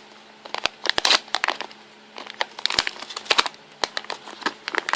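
Plastic packaging of a charging cable crinkling, crackling and tearing in irregular bursts as it is handled and opened.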